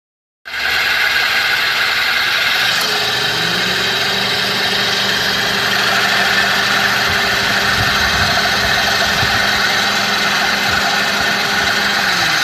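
Toyota Passo's engine running steadily at idle, with a steady low hum joining in about three seconds in; this is the abnormal noise being recorded.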